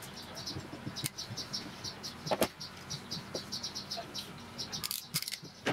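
Ratcheting wire crimper clicking a few times, sharpest about two and a half seconds in, as a connector pin is crimped onto a power wire. Under it, a fast high chirping goes on throughout.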